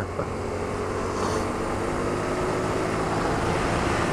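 Honda Varadero 125's small V-twin engine running steadily under way, mixed with a constant rush of wind over the helmet microphone.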